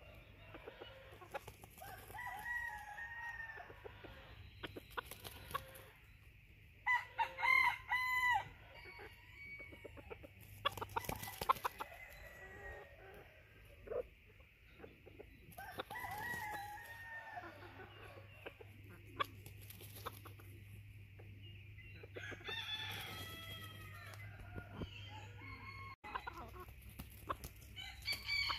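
Bantam junglefowl rooster crowing a few times, with short clucking calls between the crows.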